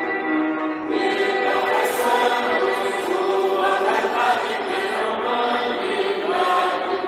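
Mixed choir of women's and men's voices singing a hymn together in harmony, with sustained notes.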